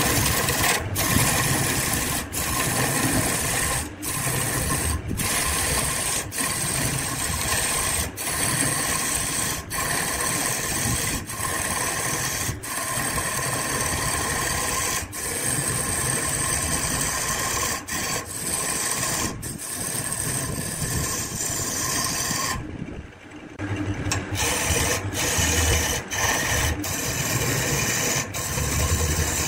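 Wood lathe running, with the rasping of wood being cut away on the spinning piece and a steady whine from the machine. The sound breaks off briefly every second or two, with a longer break about 23 seconds in.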